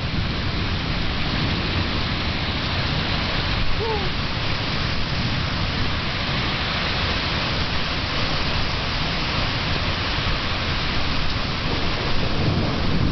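Steady heavy rain with a continuous low rumble of thunder under it; the thunder swells near the end.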